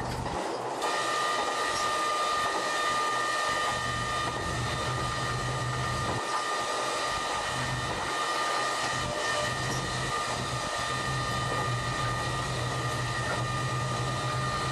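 Locomotive running along the line, heard from the cab: a steady low engine drone with running noise, and a steady high whine that sets in about a second in and holds.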